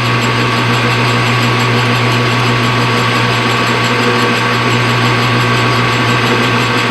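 A machine running steadily in a workshop: a strong low hum with a mechanical whir and a few steady higher tones above it.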